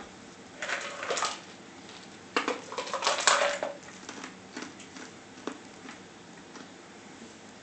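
Crumpled paper napkin crinkling in two bursts as a chihuahua puppy tugs and plays with it, followed by scattered light ticks of the puppy's claws on a wooden tabletop.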